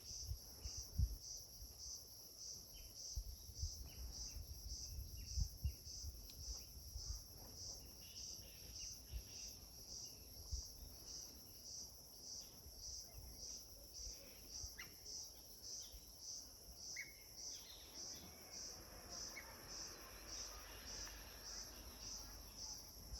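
Crickets chirping in a steady, evenly pulsing high trill, with a few short bird chirps over it. Low rumbling thumps come in the first several seconds.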